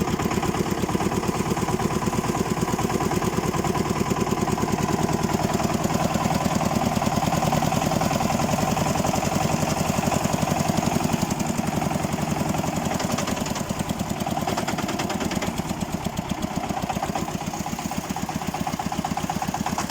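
Xingtai 244 tractor's diesel engine running with a steady, rapid knock, a sign of an internal engine fault that the driver cannot place and that grows stronger under load. The engine gets a little quieter about two-thirds of the way through.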